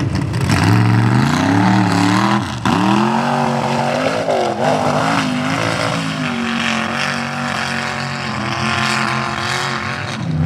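Old-school Chevy mega mud truck's engine revving hard as it launches, the pitch climbing, then dropping sharply about two and a half seconds in. After that it is held at high revs, wavering, as the truck plows through the mud pit with its tyres churning and throwing mud.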